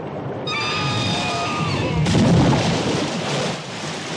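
Film audio: a high whistling squeal from a killer whale, then about two seconds in a loud boom and crash of erupting water that slowly dies away.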